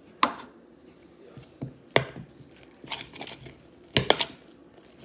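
Hands mixing sticky slime in a plastic mixing bowl on a wooden table: sharp knocks about every two seconds, a double one near the end, with softer handling noise between.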